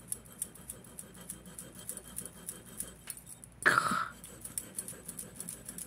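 Light clinking of metal chain links handled in the fingers, with one short scrape a little past halfway as the chain is rubbed across a black testing stone to leave a streak for a metal test.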